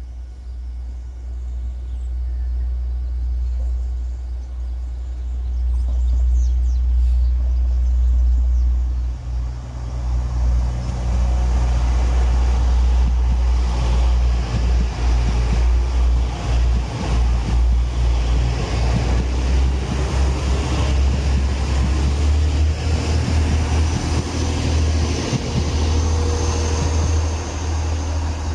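TransPennine Express Class 185 diesel multiple unit passing close by: its engine and wheels on the rails build up from about ten seconds in and stay loud until near the end. A deep low rumble underlies the whole passage.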